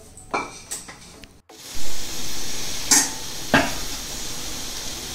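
A few light knocks, then a gas stove burner hissing steadily under a steel pot of water being heated to the boil, with two sharp clicks about half a second apart.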